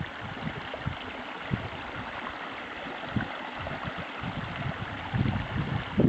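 River water flowing steadily, with wind gusting on the microphone about five seconds in.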